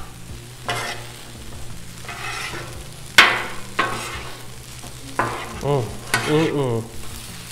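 Two metal spatulas scraping and turning fried rice on a hot steel Blackstone flat-top griddle, over a steady sizzle. Sharp scrapes come every second or so, the loudest about three seconds in.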